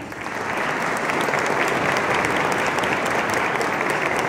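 Audience applause: many people clapping. It starts suddenly, swells over the first second, then holds steady.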